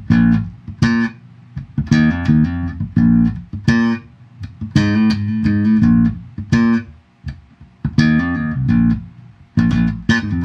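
Riverhead RBP-3 Precision-style electric bass with maple neck and mango body, played fingerstyle with the tone knob fully open, through a bass amp and Yamaha cabinet heard over the camera's built-in mic: a run of plucked notes with sharp, bright attacks, some left ringing and others cut short.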